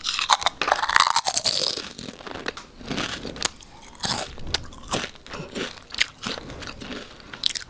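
Close-miked crunching and chewing of crispy chips, a run of irregular sharp crunches.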